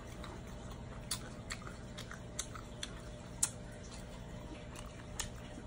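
A person chewing shrimp close to the microphone, with irregular sharp wet clicks and smacks of the mouth.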